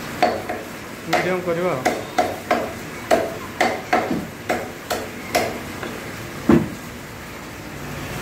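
Meat cleaver chopping raw chicken on a wooden log chopping block, about two sharp strokes a second. The chopping stops about six and a half seconds in, and the last stroke is the loudest.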